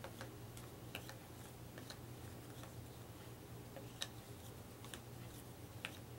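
Faint, scattered light clicks and taps of cardboard game tokens being handled, about one a second with the sharpest about four seconds in, over a low steady room hum.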